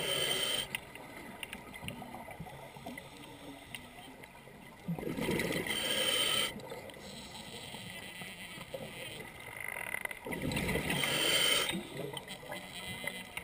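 Scuba diver's breathing through a regulator: exhaled bubbles bursting out three times, about five seconds apart, each for a second or so, with quieter stretches between the breaths.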